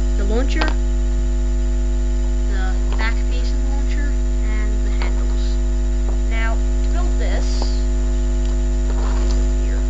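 Loud, steady electrical mains hum with a row of steady overtones, picked up in the recording.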